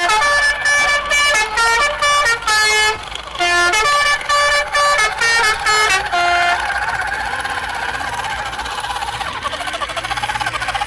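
A horn sounding a quick tune of short notes that step up and down in pitch, like a musical vehicle horn. After about six seconds it gives way to a steadier, noisier sound.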